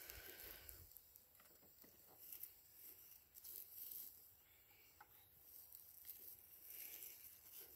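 Near silence, with faint rustling and a few small clicks as fence gear is handled.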